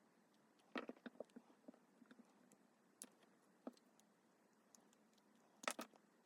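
Faint, scattered small clicks and taps of hand tools and parts being handled during a phone teardown, with a short cluster about a second in and a louder double click near the end.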